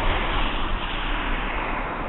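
Road traffic: a car passing on the street, its tyre and engine noise steady and then fading near the end.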